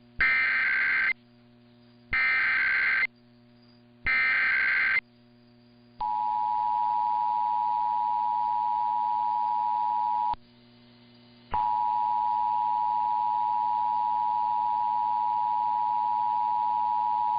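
Emergency Alert System SAME header: three warbling data bursts of about a second each, a second apart. Then the steady two-tone EAS attention signal sounds, drops out for about a second some ten seconds in and resumes. A faint low hum runs underneath.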